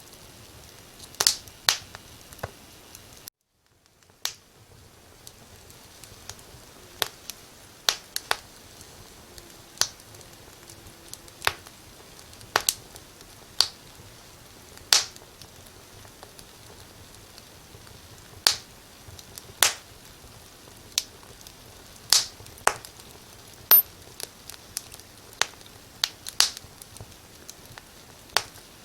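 Firewood burning in a fireplace, crackling with sharp irregular pops every second or two over a faint steady hiss. The sound cuts out completely for about a second a little after three seconds in.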